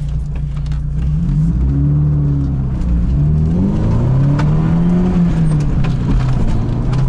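Lada Niva's four-cylinder petrol engine pulling under hard acceleration on the road, its revs climbing and dropping back twice. The engine has just been flushed with diesel fuel to cure hydraulic lifter tapping.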